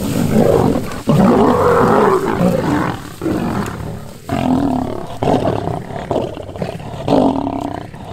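Lions of a pride growling over a fresh impala kill while they feed, in loud bursts of a second or two, one after another.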